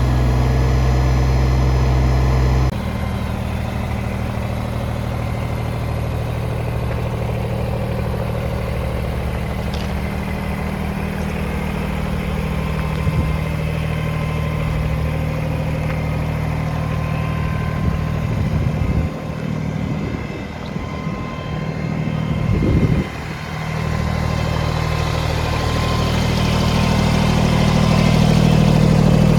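Kubota BX25 compact tractor's three-cylinder diesel engine running steadily. The tone changes abruptly about three seconds in, and the engine note wavers and dips several times between about 18 and 24 seconds in before steadying and growing louder near the end.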